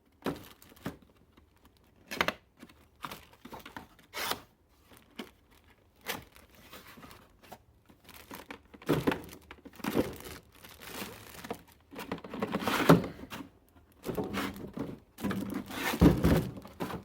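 Product packaging being torn open and crinkled by hand: irregular bouts of tearing and rustling with the odd knock, growing louder and busier in the second half.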